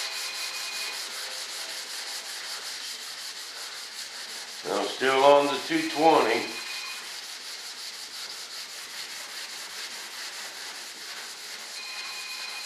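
Sandpaper rubbing back and forth by hand over a primed fiberglass model-jet wing, a steady scratchy hiss. The sanding knocks back the guide coat to show up low spots in the surface. A man's voice is heard briefly about five seconds in.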